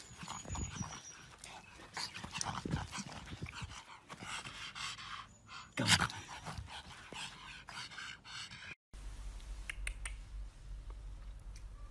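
A pug panting hard as it runs about on grass, with one louder sudden breath about six seconds in. After a cut near the end, a quieter stretch with a low steady hum.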